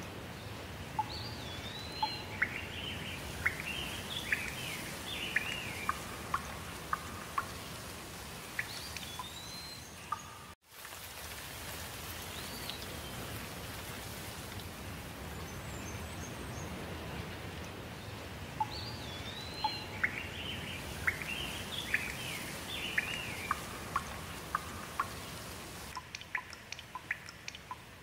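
Small birds calling and singing in quick whistled notes over a steady outdoor rushing background. The sound drops out for an instant about ten seconds in, and sharp ticks like dripping water start near the end.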